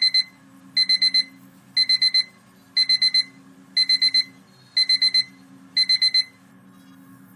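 Electronic alarm beeping in groups of four quick high beeps, about one group a second, over a low steady hum; the beeping stops about a second before the end.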